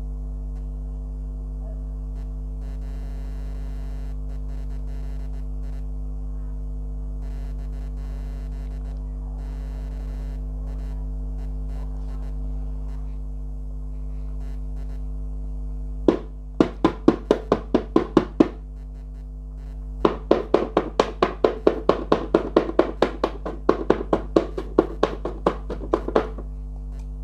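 Steady background music with sustained tones. Partway through come two runs of quick sharp ticks, the second one longer, like a prize-wheel spinner ticking as it turns.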